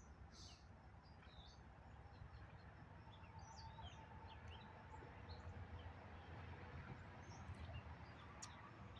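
Quiet background: scattered short bird chirps over a steady low rumble.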